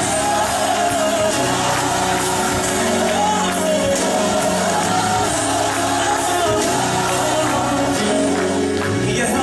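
Gospel praise music: singing over a full band accompaniment, loud and continuous.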